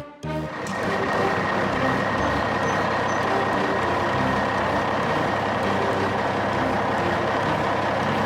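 A heavy truck's engine runs steadily. It comes in about half a second in and then holds an even level.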